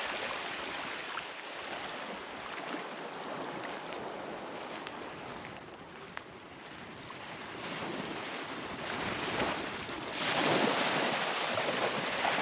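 Small sea waves washing onto the beach in the shallows, ebbing quieter midway and swelling into a louder wash of surf about ten seconds in.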